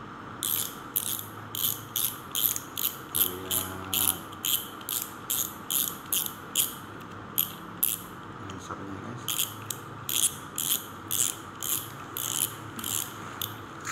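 Kaizen Oarai spinning reel being cranked by hand, its turning rotor giving a rhythmic clicking of about two clicks a second, with a short break near the middle.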